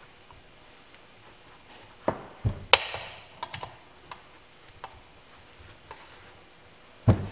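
Scattered sharp clicks and knocks of hand tools and metal parts being worked on a supercharger intake manifold and throttle-body assembly while its bolts are secured. The loudest knock comes a little under three seconds in, with another strong one near the end.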